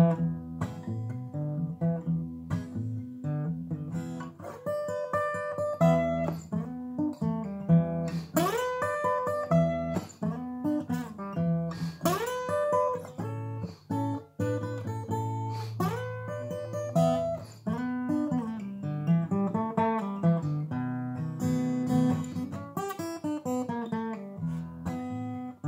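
Solo acoustic guitar, fingerpicked blues: a held low bass note under picked treble notes, many of them bent or slid upward in pitch.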